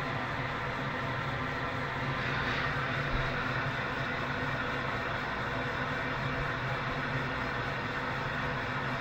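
Television static: a steady hiss of white noise from a TV showing snow on a channel with no signal, with a low hum underneath.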